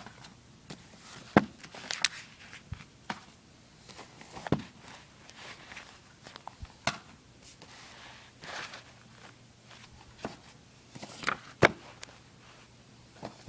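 Paperback comic digests being handled and laid down one after another: irregular soft thumps and sharp knocks, with short paper rustles in between.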